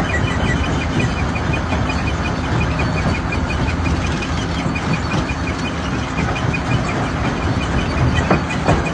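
Hammer-type stone crusher running loaded, a steady heavy mechanical rumble with a fast, even ticking over it. Two sharp knocks stand out near the end.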